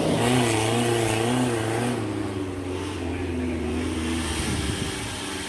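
Off-road 4x4's engine revving, its pitch wavering quickly up and down for the first couple of seconds, then running more steadily and a little quieter.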